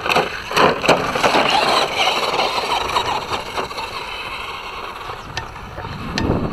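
Traxxas Slash 2WD RC truck driving over dirt: a crunching, scraping rush of tyres and grit, with several sharp knocks in the first second as the truck bounces.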